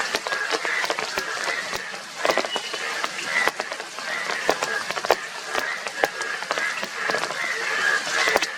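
A chorus of Indian bullfrogs calling over one another: a dense run of short, repeated croaks. Sharp ticks of rain run through it.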